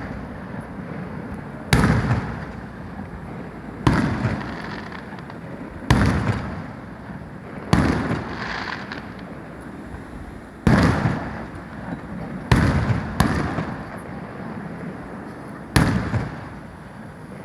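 Aerial firework shells bursting overhead: about eight sharp bangs, roughly one every two seconds, each followed by a rolling rumble that dies away.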